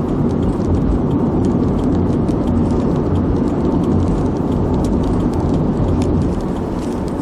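Steady low rumble and hiss of a moving vehicle, heard from inside its cabin, with a few faint ticks.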